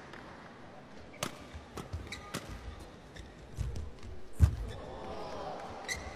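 Badminton rally: a string of sharp cracks as rackets strike the shuttlecock, with low thuds of players' footwork on the court floor. The loudest, a hit with a heavy thud, comes about four and a half seconds in.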